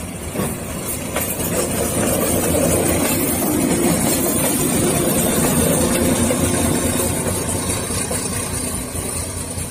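Diesel locomotive running with a heavy, steady rumble that grows louder over the first two seconds and eases slightly near the end.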